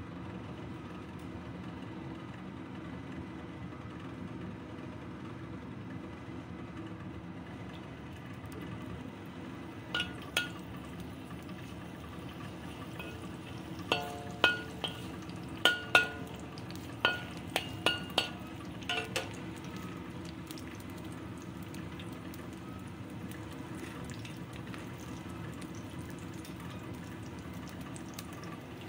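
A metal spatula clinking against a wok about a dozen times, in short clusters around the middle, as slices of ginger are put into hot oil and moved about. Under it is a steady low rumble.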